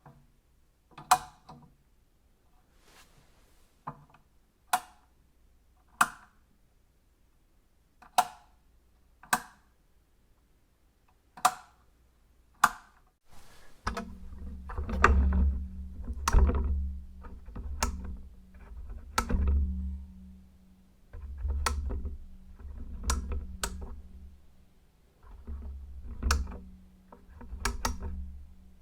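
Switches being flicked on and off: a series of single sharp clicks about one to two seconds apart. About halfway through a low hum starts, and from then on clusters of clicks come over it.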